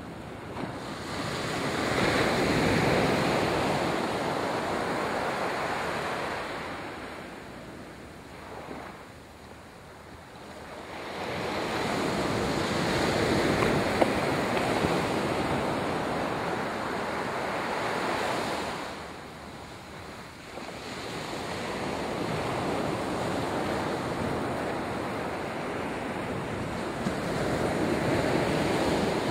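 Small waves breaking and washing up a sandy beach. The surf swells and fades in three long surges, with short quieter lulls between them.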